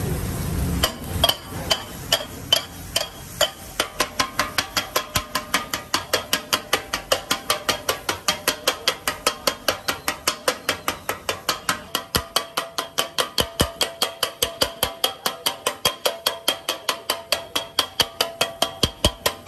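Two stainless-steel tumblers pounding and chopping kothu parotta on a flat metal griddle: a fast, even metallic clatter with a ringing tone. A few slower strikes open it, then it settles at about five strikes a second.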